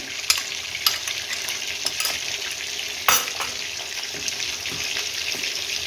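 A steady sizzling hiss, with a few sharp clinks of a metal spoon against a glass bowl and a wok as yogurt is scraped in; the loudest clink comes about three seconds in.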